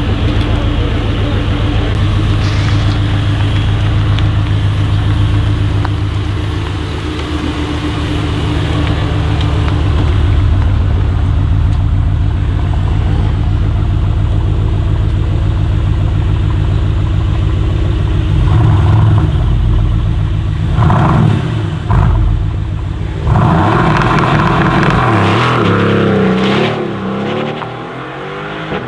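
Mercedes-AMG GT R's twin-turbo V8 running steadily at a low idle, then blipped in several sharp revs and taken into a hard acceleration whose pitch sweeps and falls as the car pulls away, fading near the end.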